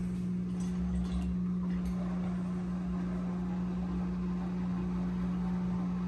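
Frigidaire FFCD2413UB1A dishwasher running just after its Start button is pressed, its pump motor giving a steady low hum.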